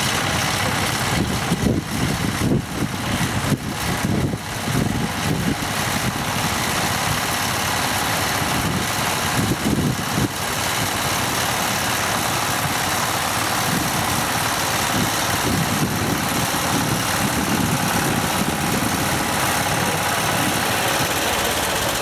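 Walk-behind two-wheel tractor (motoculteur) engine running steadily, unevenly in the first few seconds and again about ten seconds in.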